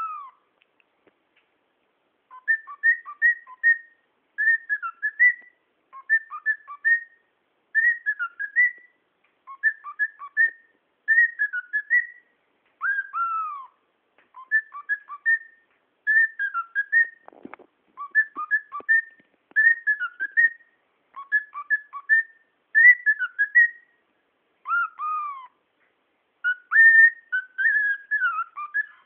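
Lutino cockatiel whistling a short learned tune over and over, in clipped phrases of quick notes, now and then giving a single long falling whistle.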